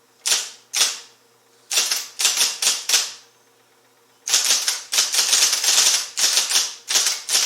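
IBM Selectric I electric typeball typewriter typing: a couple of single keystrokes, a short group of strokes, then a fast run of keystrokes starting about four seconds in.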